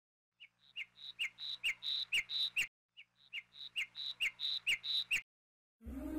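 Bird chirping in repeated two-note calls, about two a second, that grow louder across a phrase of about two seconds; the same phrase comes twice. Instrumental music starts near the end.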